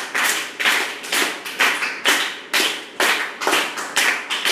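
Hand clapping in a steady rhythm, about two claps a second. It is the cue in a pass-the-box game: the box keeps moving while the clapping goes on, and whoever holds it when the clapping stops must answer.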